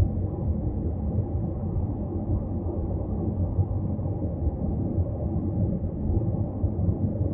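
Deep, steady rumble of a moving car heard from inside the cabin: road and engine noise.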